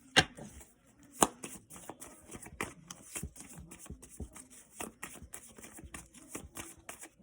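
A deck of cards being shuffled and handled: a run of quick flicks and rustles, with two sharp clicks near the start as the cards are tapped or snapped.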